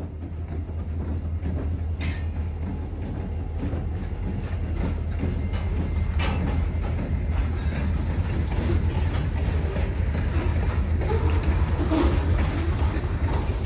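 Freight train's hopper cars rolling past close by: a steady low rumble of steel wheels on rail with clicks over the rail joints, growing louder as the cars go by.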